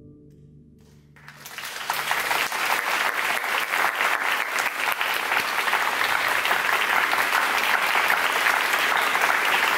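The last faint tail of an orchestra's final chord, then audience applause starting about a second in, building quickly and holding steady.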